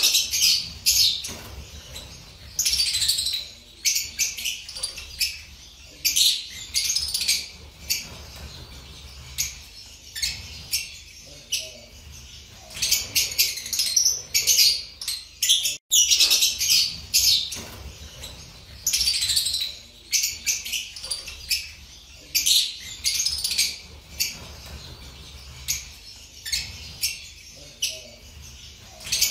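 Fischer's lovebird chirping: high-pitched calls in quick bursts, repeated every second or two.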